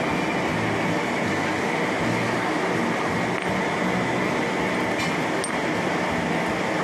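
Steady mechanical drone of running machinery, with a faint metallic click about five seconds in as the tap is handled.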